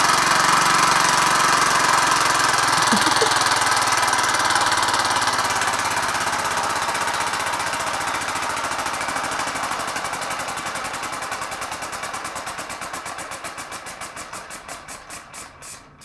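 Fully 3D-printed PLA compressed-air piston engine running a propeller on a bottle charged to 60 psi: a rapid mix of air-exhaust puffs and plastic clatter that starts all at once. Over the run it slowly fades and slows until single puffs can be heard, winding down as the bottle's pressure drops, and stops near the end.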